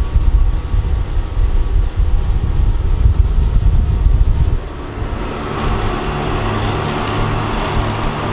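Twin Mercury Racing DSI 3-litre two-stroke diesel outboards running with the boat under way, with wind and water noise. About halfway through, the heavy low rumble gives way to a steadier engine drone over rushing water.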